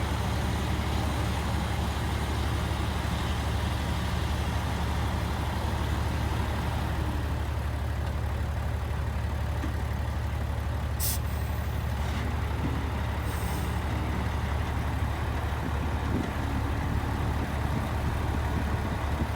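Heavy diesel engine of earthmoving machinery running steadily with a low drone. Two brief high-pitched hisses come about eleven and thirteen seconds in.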